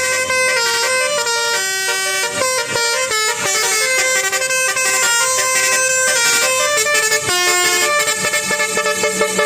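Telolet basuri bus horn, a multi-tone musical air horn, playing a melody, its notes changing pitch every fraction of a second with several tones sounding together.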